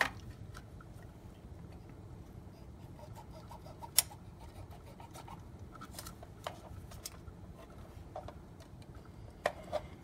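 Small plastic clicks and soft rubbing from handling a fiber optic connector cleaning cassette and a duplex fiber connector, with one sharp click about four seconds in and two more clicks near the end.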